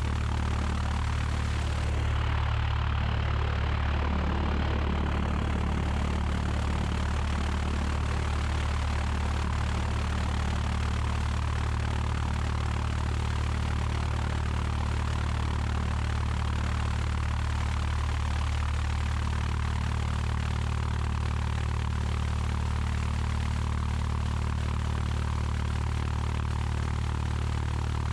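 Cessna 172's four-cylinder Lycoming O-320 engine and propeller idling steadily, a low, even drone that does not change in pitch.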